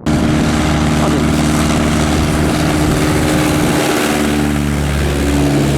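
Light propeller aircraft's piston engine running close by at a steady speed, with the propeller's even drone over a hiss of air. The pitch eases slightly lower near the end.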